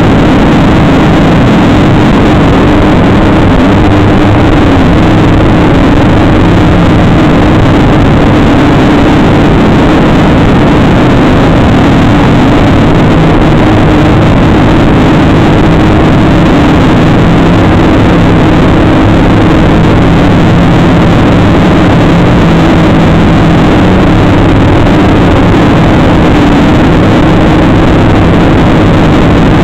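XK X250-A Alien quadcopter's motors and propellers buzzing steadily in flight, heard very loud and close through its own onboard camera. The pitch shifts slightly with the throttle.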